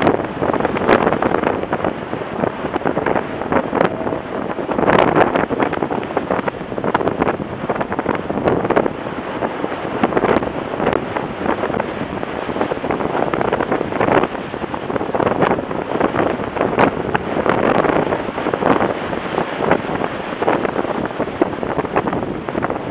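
Storm wind buffeting the microphone over heavy seas surging and breaking beneath an offshore platform: a loud, rough roar that swells and eases every few seconds.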